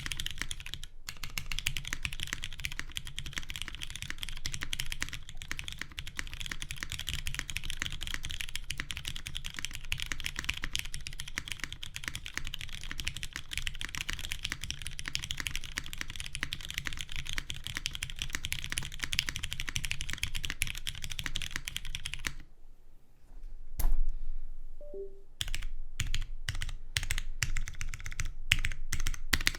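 Typing on a Keycult No.1 Rev 2 mechanical keyboard with lubed Hyperglide MX Brown tactile switches on a half polycarbonate plate, under GMK keycaps: fast, continuous keystrokes. About 22 seconds in the typing stops for a few seconds, broken by one heavier thump, then picks up again in separate strokes.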